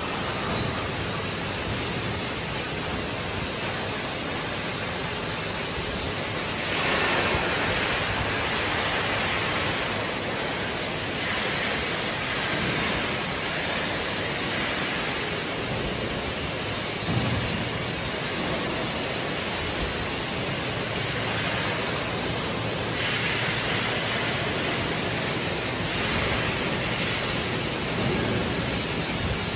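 Robotic gas-metal-arc (MIG/MAG) welding arcs hissing steadily, with several stretches of a few seconds where the hiss grows louder and brighter. There is one short knock about halfway through.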